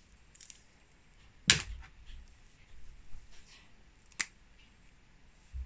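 A flat ethernet cable being handled and coiled by hand: a sharp click about a second and a half in, a second click near four seconds, and light rustling in between.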